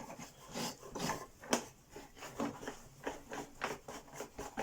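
Light irregular clicks, knocks and rubbing from hands working the freshly oiled wheels of an upturned Electrolux 612 upright vacuum cleaner, with a sharper click about one and a half seconds in.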